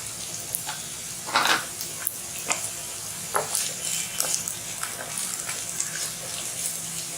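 Onion frying in a little hot oil in a pan, a steady sizzle with a spatula stirring and scraping against the pan; the loudest scrape comes about a second and a half in.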